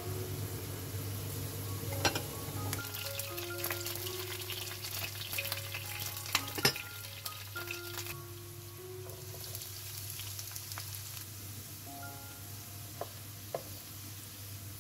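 Steady sizzling of food cooking on the stove, with a few sharp clicks of a utensil, the loudest about six and a half seconds in. A light background melody of short mallet-like notes plays over it.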